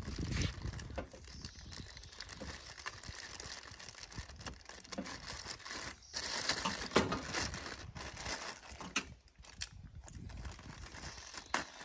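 Clear plastic wrapping crinkling and rustling as it is cut with scissors and pulled off a new trolling motor, with a few sharp clicks from handling.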